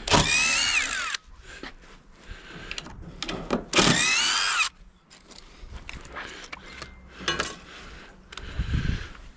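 Cordless drill-driver run twice, about a second each, its whine falling in pitch through each run as it backs out screws. Lighter knocks and taps from handling come between the two runs.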